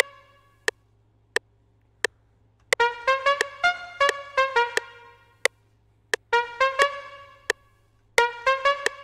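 Knifonium software synthesizer playing runs of quick staccato notes in three bursts, starting about three, six and eight seconds in. A metronome clicks steadily about one and a half times a second throughout.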